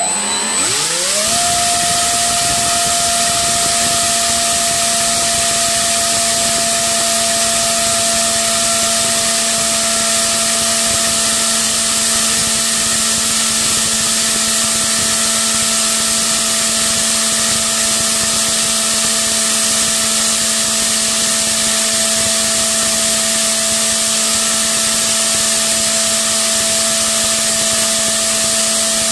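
A 3536 brushless outrunner motor spinning an 8x6 three-blade propeller on a thrust stand. It spins up within about a second to full throttle, then holds a steady high whine over a loud rush of air, drawing about 40 amps from a 4S LiPo.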